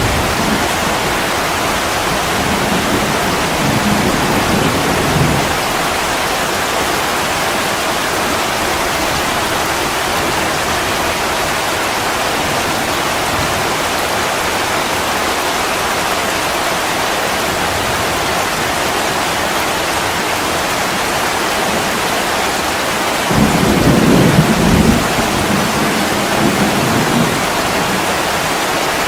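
Steady rain falling, with low rolls of thunder: one in the first few seconds and a louder one starting near the end.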